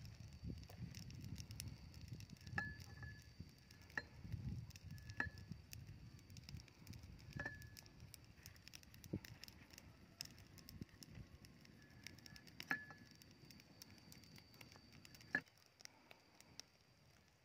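A kitchen knife slicing tomato and cucumber held in the hand, with a handful of sharp clinks that ring briefly, spaced a second or more apart, as the blade touches a dish. The last clink comes about fifteen seconds in, and after it the sound drops away.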